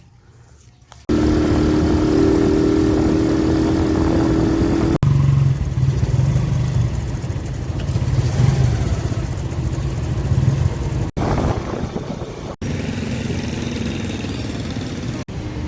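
A vehicle engine running steadily with road noise, over several short clips that cut abruptly one into the next; a steady mid-pitched tone in the first clip, a deeper hum in the next.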